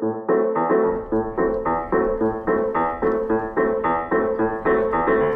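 Background music: a keyboard playing a steady, repeated pattern of notes, about three a second, over a low sustained bass.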